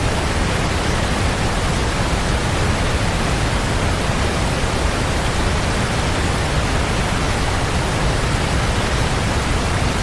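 Steady, even roar of a large waterfall's falling water.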